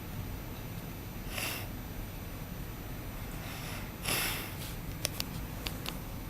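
Dog snoring in its sleep: two breathy snores, one about a second and a half in and a louder one about four seconds in, over a steady low hum. A few sharp clicks follow near the end.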